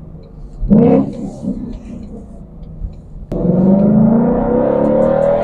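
Ford Mustang GT's 5.0 V8 through its factory active exhaust in track mode, with the resonator deleted: a short loud rev blip about a second in, then from about three seconds in a steady note that climbs in pitch as the car accelerates.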